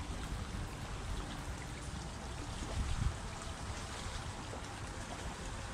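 Small waves lapping gently at the shoreline, over a low, uneven rumble of wind on the microphone. A dull bump comes about three seconds in.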